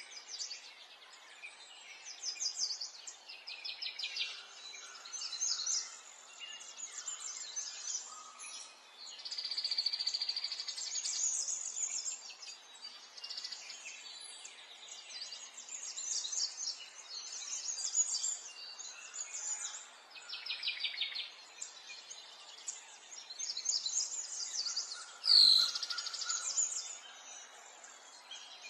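Small songbirds chirping and singing fast trills, one phrase after another, with one louder, sharp call near the end.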